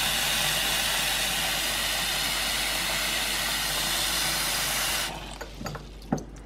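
Tap water running in a steady stream into a glass bowl in a sink, filling it with cold water. The flow cuts off about five seconds in.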